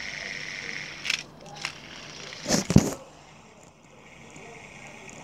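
Handling of a hard-plastic fidget spinner over a steady hiss: a couple of light clicks, then a louder rustling clatter about two and a half seconds in.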